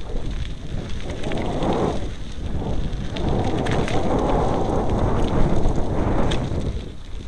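Mountain bike riding fast down a dirt trail: a loud, continuous rumble of wind buffeting the camera microphone and tyres over the ground, swelling and easing, with a few sharp knocks and rattles of the bike over bumps.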